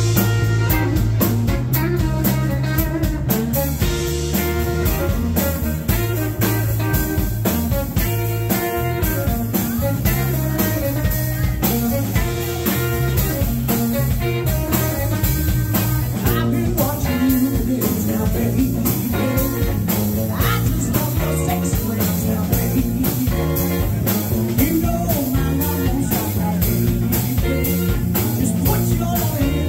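Live band playing a song: electric guitar, electric bass and drum kit keeping a steady beat, with a woman singing.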